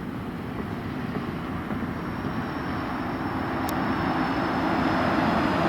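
Engine noise of a passing vehicle, a steady rumble with a low hum that grows gradually louder as it approaches.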